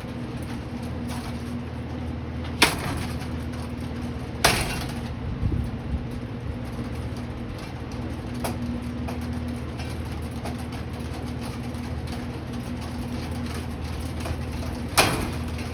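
Litex Schuster ceiling fan running with a steady motor hum, hit by thrown objects: sharp cracks about two and a half and four and a half seconds in, a lighter knock near eight seconds, and another loud crack near the end, with a few smaller knocks between.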